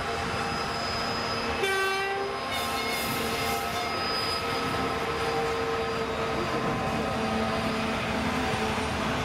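Freight train passing along the track with a steady rumble. About one and a half seconds in, the locomotive sounds one short horn blast.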